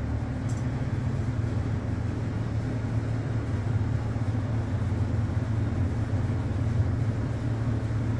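Steady low mechanical hum with an even rush of air noise while the paddle blender's pneumatically driven stainless steel lid lowers slowly, with one faint click just after the start.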